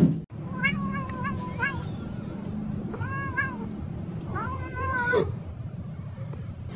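Domestic cat meowing in three bouts: a quick string of short meows about half a second in, a single meow around three seconds in, and a longer meow near five seconds that drops in pitch at its end. A sharp knock sounds right at the start.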